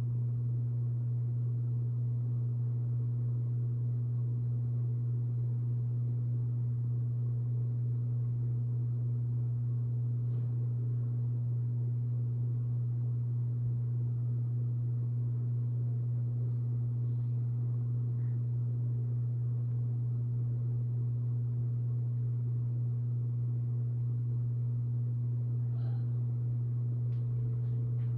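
Hampton Bay Minuet II ceiling fan running, its motor giving a steady low hum.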